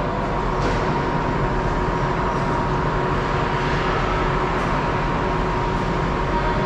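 Ice rink ambience: a continuous, even rumble with a faint steady hum running through it.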